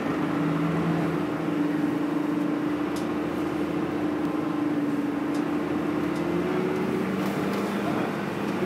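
Bus engine and running noise heard from the passenger saloon: a steady droning hum with light rattles, its pitch lifting slightly about seven seconds in.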